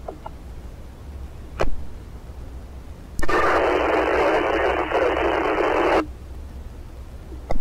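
Baofeng UV-5R handheld scanner radio: a short squelch click, then about three seconds of loud static hiss from a transmission with no voice on it, starting and cutting off abruptly, and another click near the end.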